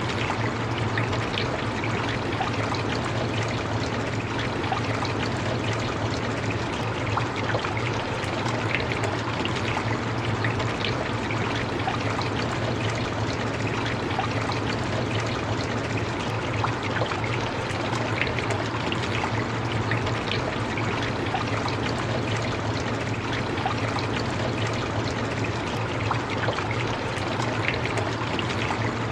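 Steady rain with scattered individual drops and a trickling sound, and a steady low hum underneath.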